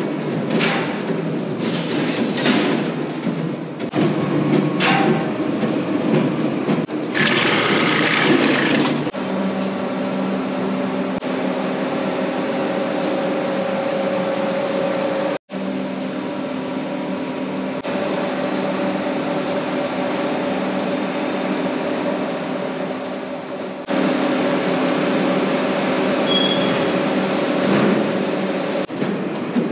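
Potato packing machinery running continuously: a rattling, clattering mechanical noise with a steady motor hum underneath. Louder hissy surges come in the first several seconds, and the sound changes abruptly at cuts about a third and four-fifths of the way through, with a brief dropout about halfway.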